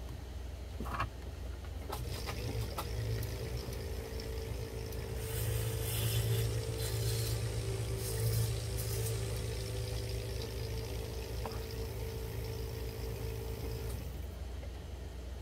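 A small motor runs steadily for about twelve seconds, starting after a few clicks and stopping suddenly near the end, with a low electrical hum underneath.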